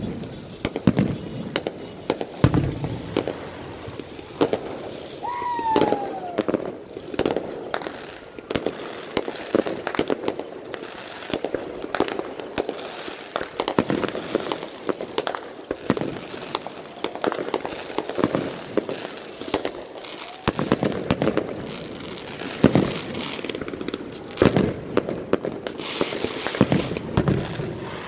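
Fireworks display: aerial shells bursting in a continuous run of bangs and crackling, with a short falling whistle about six seconds in.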